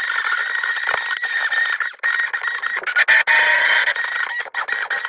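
Moulinex electric mixer running in a thick semolina-and-flour baghrir batter with a steady high-pitched whine, mixing out lumps. The whine cuts out briefly a few times, and its pitch shifts slightly about three seconds in.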